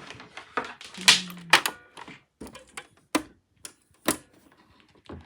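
Plastic clicks and knocks of cords being unplugged and handled: a string of sharp clicks and brief rustles, with three loud single clicks in the second half.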